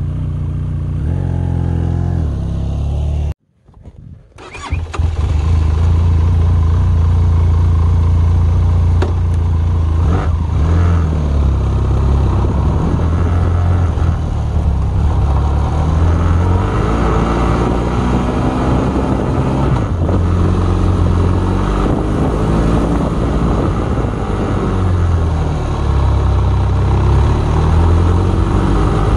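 Benelli TRK502X motorcycle's parallel-twin engine running at a standstill for about three seconds. After a brief gap it runs under way, its pitch rising and falling as the bike accelerates and eases off.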